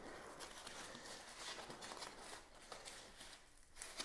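Faint rustling and scuffing of foam packaging sleeves being handled and slid off a bicycle's front fork legs.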